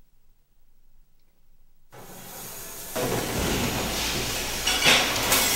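Near silence, then the steady rushing noise of a walk-in cooler's evaporator fans coming in about two seconds in, growing loud by three seconds with a brief brighter surge near the end.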